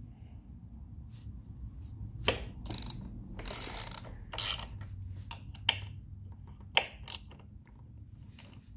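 Hand ratchet with a Torx bit socket clicking in short irregular runs as the motorcycle's front brake caliper mounting bolts are loosened and backed out, with a few sharper single clicks.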